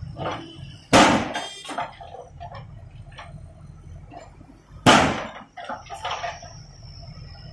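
JCB backhoe loader's diesel engine running while its rear bucket works broken concrete, with two loud crashes, about a second in and near five seconds, each followed by smaller clatters of rubble.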